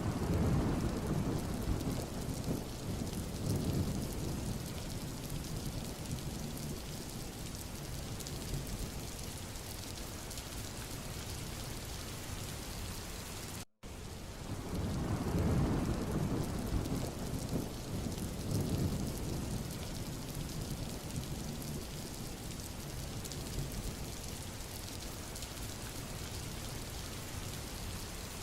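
Steady rain with low rolling thunder, rumbling near the start and again about halfway through. It is a looped rain-and-thunder recording that cuts out for an instant just before the second rumble.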